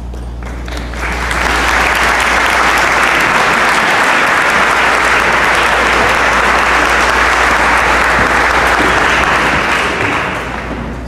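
Audience applauding, building up over the first second or so, holding steady, and dying away near the end.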